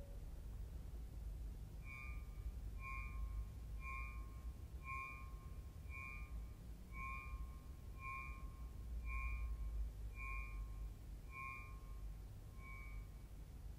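Accordion sounding a soft, short high note over and over, about once a second, eleven times, spacing out slightly near the end, over a faint low rumble.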